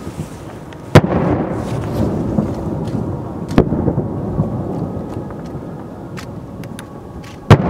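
Japanese aerial firework shells booming three times, about a second in, midway and near the end. Each loud boom is followed by a rolling, thunder-like echo.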